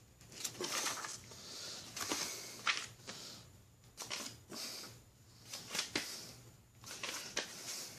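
Thin Bible pages being turned and handled, a run of soft papery rustles with a few sharper flicks.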